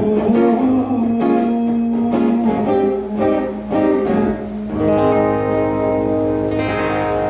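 Guitar strumming chords in the instrumental outro of a live song, settling into long held chords about five seconds in.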